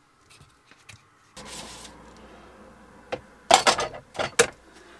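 Washing up by hand in a small sink: a bowl and utensils clink and knock against each other in a plastic washing-up bowl, with several sharp clatters in the second half. A steady hiss starts about a second and a half in.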